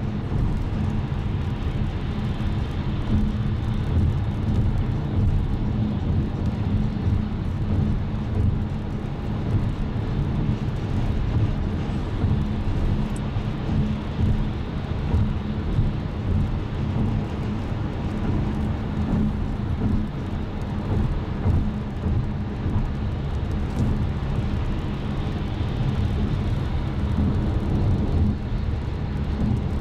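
Cabin noise of a car travelling at motorway speed: a steady rumble of tyres and engine with a constant low drone.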